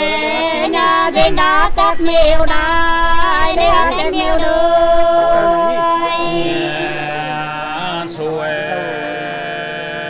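Nùng sli folk singing, sung without instruments in long, drawn-out held notes.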